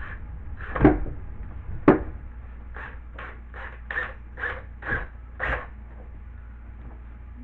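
A hammer striking, probably tacking a drywall patch piece into place: two hard knocks about a second apart, then a run of seven lighter taps at about two a second.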